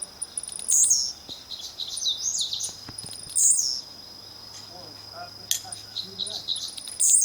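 Blue-black grassquit (tiziu) giving its short, high, buzzy song three times, about every three seconds. Under it runs a steady high cricket trill, with softer chirps from other birds in between.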